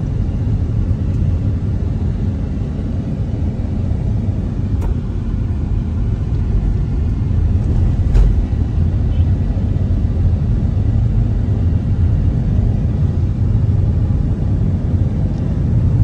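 Steady low rumble of a car driving, engine and tyre noise heard from inside the cabin on a rough unpaved road. A single sharp knock sounds about halfway through.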